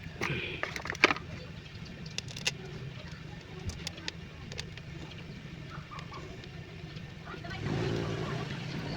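A steady low engine hum, with scattered light clicks and knocks over it and a louder surge of noise near the end.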